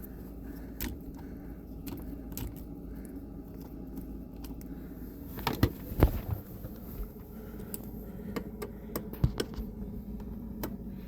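Scattered plastic clicks and knocks as the turn signal stalk and steering-column trim parts are handled, with a few louder knocks around the middle, over a steady low hum.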